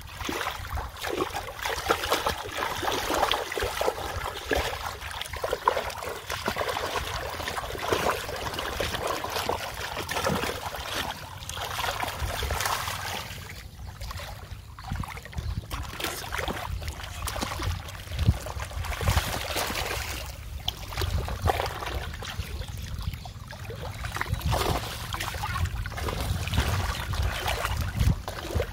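Shallow muddy water splashing and sloshing as a large fish is grabbed and lifted out by hand, with irregular splashes throughout.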